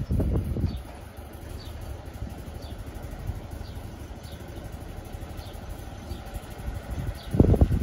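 Class 156 Sprinter diesel multiple unit idling at the platform, a steady low diesel rumble from its underfloor Cummins engines. Wind gusts buffet the microphone just after the start and again near the end, and a bird chirps faintly about once a second.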